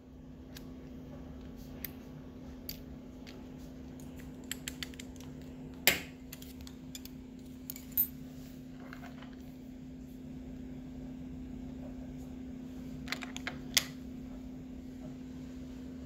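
Scattered light clicks and taps of a Master Lock 570 padlock being handled, with a few sharper knocks, one about eight seconds in as it is set down on a stone countertop. A steady low hum runs underneath.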